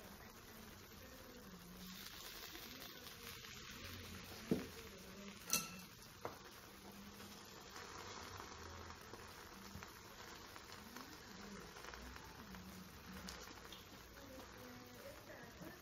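Lamb and vegetables in tare sauce simmering in a tray on a hot plate: a faint, steady sizzle. A few sharp clicks, the loudest sounds, come about a third of the way in.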